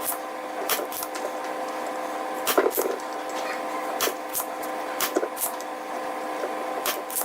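Irregular light clicks and taps of tools against a circuit board as a transformer is worked loose during desoldering, over a steady electrical hum.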